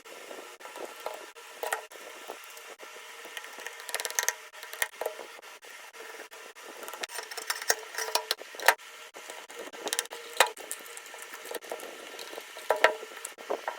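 Irregular clicks, taps and light rattles of small tools and parts being handled, over a faint steady hum.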